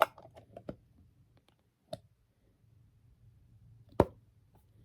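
A few sharp clicks and taps from handling a small plastic putty container, its lid being closed; the loudest click comes about four seconds in.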